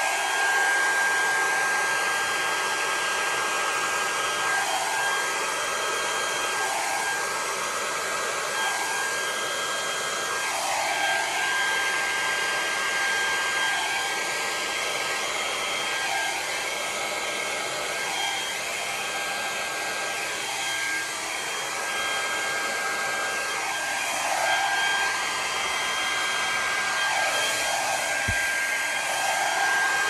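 Hand-held hair dryer blowing continuously, pushing wet acrylic paint across a canvas: a steady rush of air with a high motor whine, its tone wavering slowly as it moves. A brief soft knock near the end.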